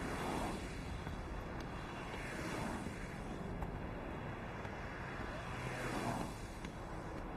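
Street traffic, with cars driving past that swell and fade about three times.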